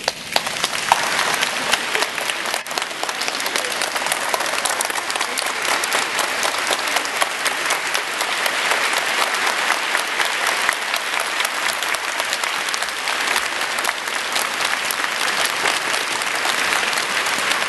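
A large audience making a 'rainstorm' with their hands: many people clapping and slapping at once in a dense, steady patter like heavy rain. It jumps louder right at the start and then holds.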